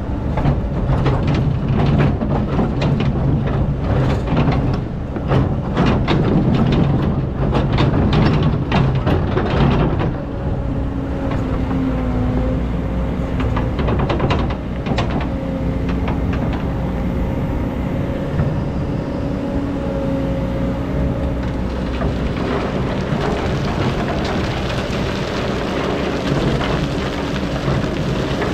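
Excavator running while digging sand: a heavy engine rumble with dense clanking and rattling for about the first ten seconds, then a steadier drone with a held whining tone and a few more knocks.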